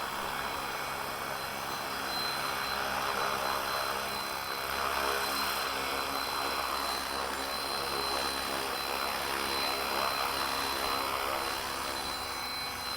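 Flywing FW450 electric RC helicopter hovering in place under GPS hold: steady rotor buzz with a thin, high motor whine held at one pitch.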